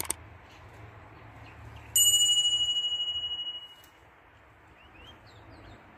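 A mouse click, then about two seconds in a bright notification-bell chime that rings and fades away over about a second and a half. This is the sound effect of a YouTube subscribe-button animation.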